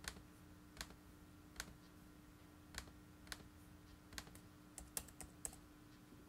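Computer keyboard keys and mouse clicks, about nine separate clicks spaced irregularly, as values are entered into tuning software. A faint steady hum runs underneath.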